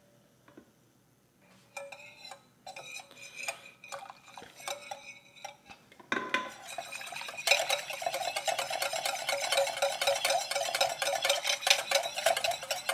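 Wire whisk beating an egg and lemon juice mixture in a glass bowl, its wires clicking against the glass, as hot stock is worked in to temper the eggs. A few slow strokes come first, then a knock about halfway, then fast, steady whisking.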